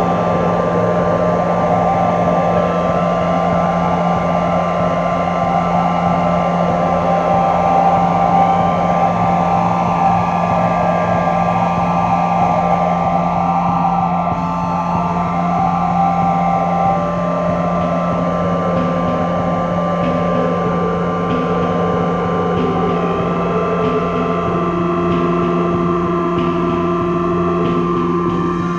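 Ambient drone music: a steady held low note and several higher sustained tones over a shifting, hissing texture, with a new held note coming in near the end.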